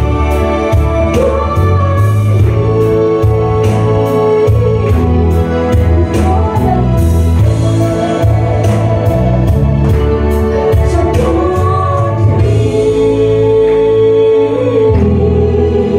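Gospel song sung into a microphone over a PA system, with long held notes and an accompaniment with a steady beat.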